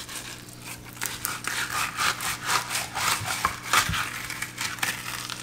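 Knife sawing along a snook fillet on a wooden cutting board to cut away the skin, in repeated short scraping strokes.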